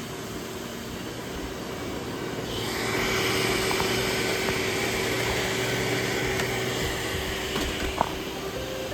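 Roomba robot vacuums running: a steady motor hum with a held tone, joined about two and a half seconds in by a louder hissing whir that eases off near the end. A single sharp click near the end.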